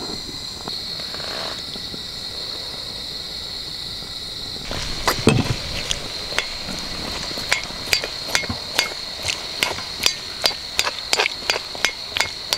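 A series of sharp knocks or taps: a few scattered ones about five seconds in, then quickening to two or three a second. Under them runs a steady high-pitched buzz.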